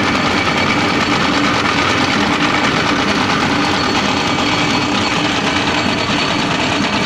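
Small stationary petrol engine running steadily, driving a forage grass chopper (mesin cacah).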